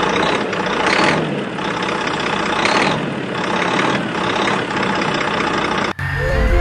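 Huina 1593 remote-control excavator working, a steady mechanical engine-like drone that swells several times as it moves. Music comes in abruptly near the end.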